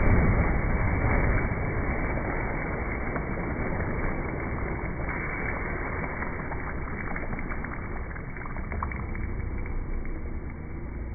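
Slow-motion recording of swimming-pool water splashing and churning after a jump in, heard slowed down and deep, with no high sounds. It is loudest at first and slowly fades.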